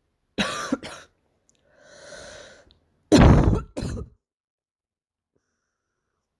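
A girl's barking cough: two quick harsh coughs, a noisy drawn-in breath, then a second, louder pair of coughs.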